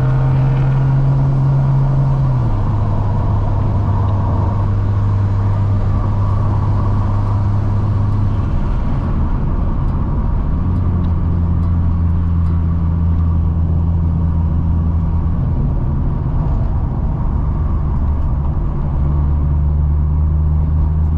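Car engine droning at a steady cruise, its note stepping abruptly to a new pitch several times, lower about two seconds in and again near the middle, then higher.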